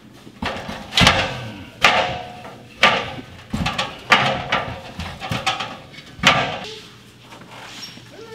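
A series of sharp knocks and bangs of hard objects, about one a second, some followed by a brief ring.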